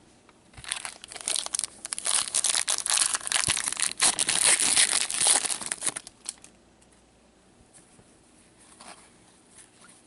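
A shiny foil hockey card pack wrapper being torn open and crinkled as it is pulled off the cards. The crinkling starts just under a second in, goes on for about five seconds, then stops.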